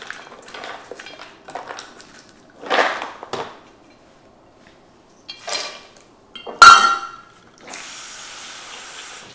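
Glass jar and metal measuring cup clinking and knocking on a countertop as they are handled, with one loud clank about two-thirds through. Then a kitchen tap runs steadily near the end.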